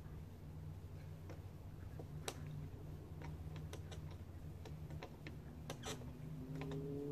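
Scattered, irregular light clicks and ticks, a few every second, over a steady low hum. Near the end a faint tone rises slightly.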